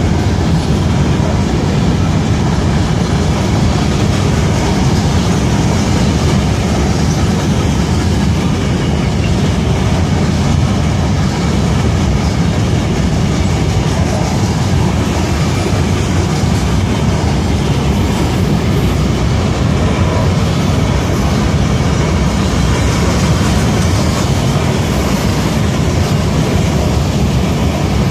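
Freight train's rock hopper cars rolling past, a loud steady run of steel wheels on the rails.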